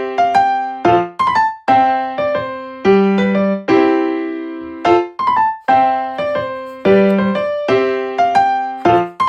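Background music: a bright electric piano tune looping a short pattern of notes at a steady pace.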